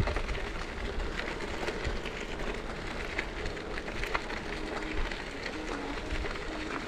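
Bicycle tyres rolling over a crushed-gravel trail, a steady crackle of many small clicks from the stones, with low wind rumble on the microphone.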